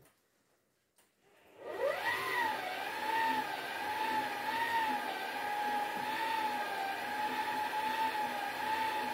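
Stand mixer motor starting up about a second and a half in, its whine rising in pitch, then running steadily with a slight wobble while it whips mashed potatoes with butter and cream.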